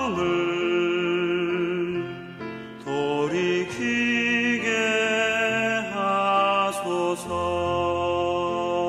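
Instrumental Korean contemporary Christian worship music: a slow melody of long held notes over sustained chords.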